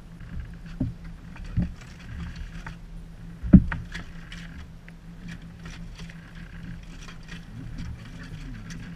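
A boat's engine running steadily under three sharp knocks, the loudest about three and a half seconds in, with scattered light clicks.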